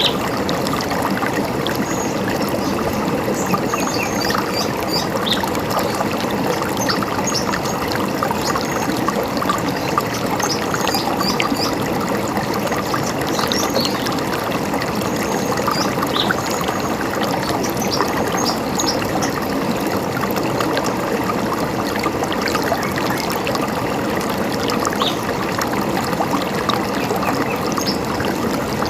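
A river running steadily over stones, with birds chirping here and there above the water.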